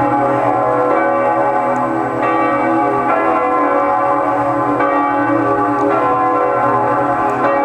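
Two large bronze church bells, cast in 1858 by Havard of Villedieu and tuned to C♯3 and B2, swinging in full peal together. Their strokes come every second or two and overlap into continuous ringing.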